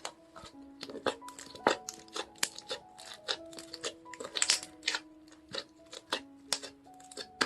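Slime being squeezed and stretched by hand, giving sharp, irregular pops and crackles several times a second, over soft background music with held notes.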